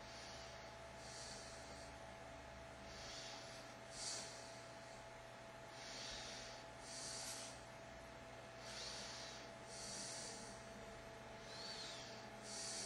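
A person breathing through the nose close to the microphone: a soft puff of hiss with each breath, about every second or so, twice with a faint whistle. A steady faint hum runs underneath.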